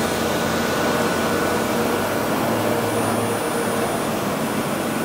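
Steady whirring hum of running machine-shop equipment, with a faint high-pitched whine.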